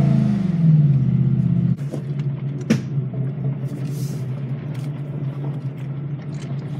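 Ford F-150 pickup heard from inside the cab: a loud droning tone that falls in pitch and cuts off abruptly about two seconds in, leaving a steadier, quieter hum with a single sharp knock a moment later. The owner says the truck just makes that sound and that it's normal.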